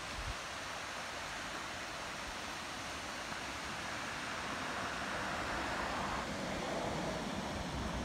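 Steady rush of water from the Steinsdalsfossen waterfall and the rocky river below it, growing a little louder past the middle.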